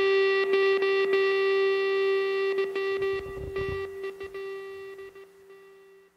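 Closing rock music: a distorted electric guitar note held and ringing out, fading away to silence by the end.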